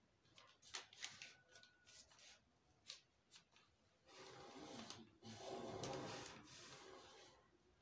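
Faint taps and rustles of a plastic French curve ruler and pen on pattern paper, then from about four seconds in a longer soft scraping as the pen is drawn along the curve to mark the armhole.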